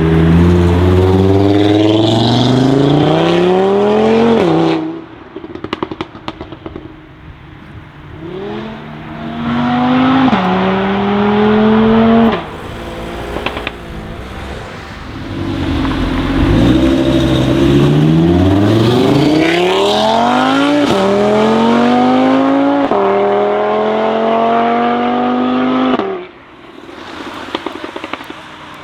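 Tuned Audi RS3 8V's turbocharged five-cylinder engine, with aftermarket downpipe, accelerating hard three times, its pitch climbing and dropping abruptly at quick upshifts. Each run ends with a lift off the throttle and a string of exhaust pops and crackles.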